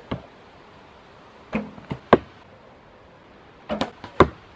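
Arrows shot from a traditional bow. Twice, the bowstring is released with a short twang and about half a second later the arrow strikes the target with a sharp hit, the loudest sound each time. There is also a quick click-and-hit pair at the very start.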